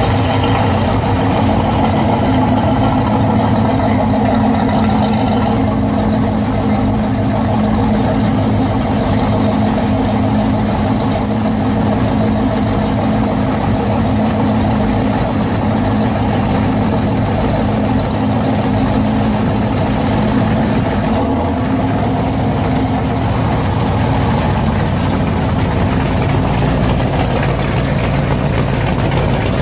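Classic Chevrolet muscle cars' engines running at low speed as they roll past one after another: first a 1966 Chevy II Nova, then a 1969 Chevelle SS with its V8. The exhaust note stays steady and changes character around three quarters of the way through as the Chevelle pulls away.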